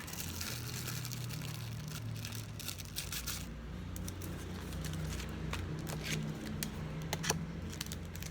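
Packaging being handled: paper or plastic rustling and crinkling with scattered light clicks and taps, over a steady low hum.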